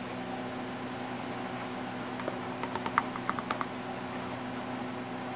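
A wooden applicator stick clicking lightly against the metal pot of an electric wax warmer as melted hard wax is stirred and lifted, a quick run of small clicks in the middle, over a steady low hum.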